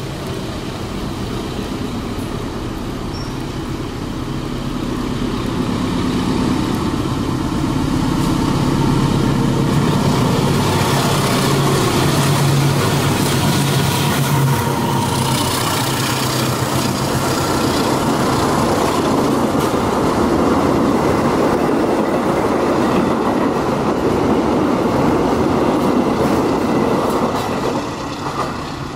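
A CC201 diesel-electric locomotive hauling passenger coaches approaches and passes close by at speed. Its low engine note is loudest as the locomotive goes past, about halfway through. Then come the wheel and rail noise and clickety-clack of the coaches going by, easing off near the end as the last coach draws away.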